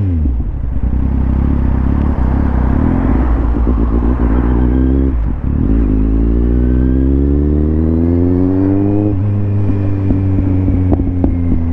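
Kawasaki Z750R inline-four engine and exhaust pulling hard under acceleration: the revs climb, break briefly at an upshift about five seconds in, climb again, then level off and ease near the end.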